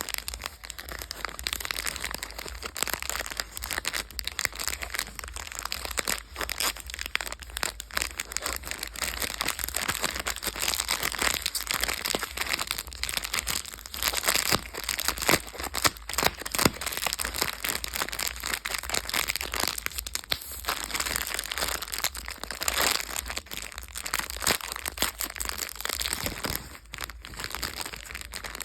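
Candy and chocolate wrappers crinkling and crackling continuously as they are handled and unwrapped, in a dense run of sharp little crackles.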